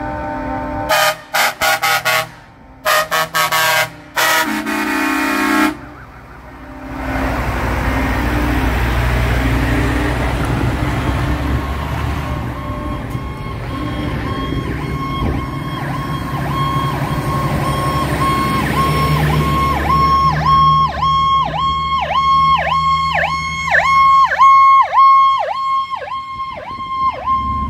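Truck air horns sound in a few short blasts, then heavy trucks drive past with their diesel engines running. Near the end a police-car siren pulses rapidly, about two to three times a second.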